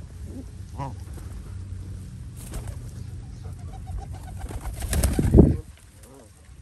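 Mixed flock of Canada geese, feral pigeons and mallards feeding at close range, with a few short bird calls. About five seconds in, a loud rushing noise swells for about a second and cuts off suddenly.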